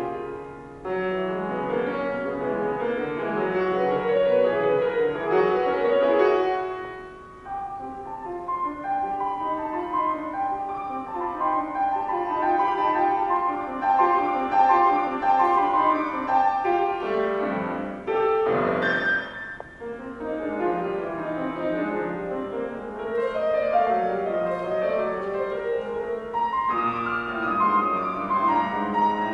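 Solo classical piano played on a concert grand. A phrase dies away about seven seconds in before the playing resumes, and a loud, dense flourish of notes comes about two-thirds of the way through.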